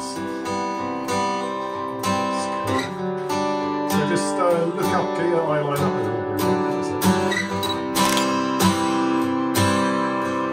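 Acoustic guitar strummed in a steady rhythm, its chords ringing on, with a wavering higher melody line joining midway.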